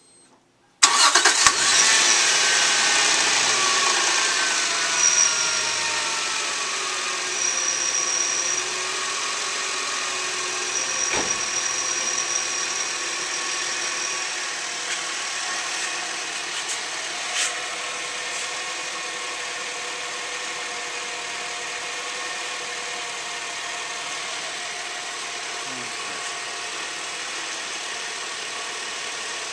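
2001 Subaru Outback's 3.0-litre flat-six engine starting about a second in, then running at a fast idle that slowly drops in pitch and loudness as it settles. It is the first run after an oil change, with the new filter still filling, to check for leaks.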